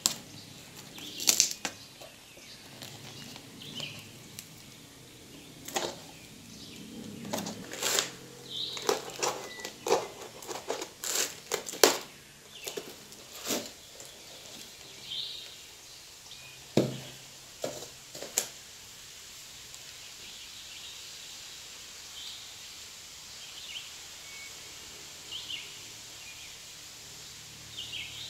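Cardboard box and packing tape being handled and torn open, then crinkling of the plastic film around a seedling's pot bag. A dense run of sharp rips and crackles over the first eighteen seconds or so, after which the handling goes quieter.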